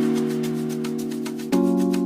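Intro music: sustained chords over a steady light beat, moving to a new chord about one and a half seconds in.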